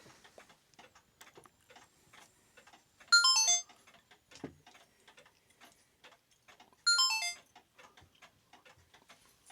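Clocks ticking, faint and uneven, as of several clocks going at once. Twice, about four seconds apart, a short bright jingle of quick stepping tones sounds over them.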